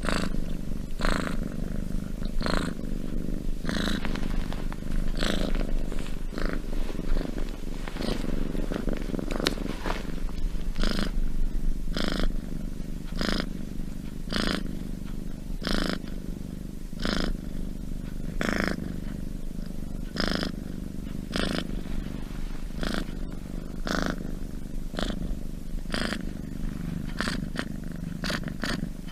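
Domestic cat purring steadily, with a brief swell about every second and a half as it breathes in and out.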